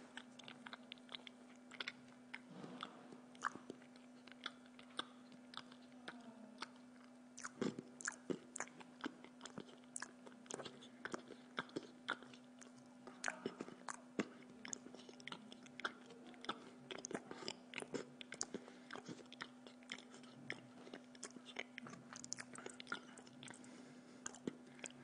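Close-up mouth sounds of a man eating spaghetti in tomato sauce: chewing and biting, with many small clicks and smacks and the fork clicking on the plate, over a steady hum.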